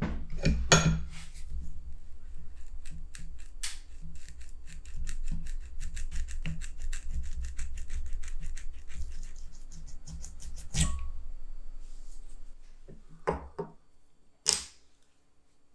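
A rusty awl blade held in a bench vise while its wooden handle is twisted and pulled off it: a quick run of small creaking clicks over a low rubbing rumble, then a sharp crack about eleven seconds in as the blade comes free. Near the end come two light knocks of the parts being set down on the wooden bench.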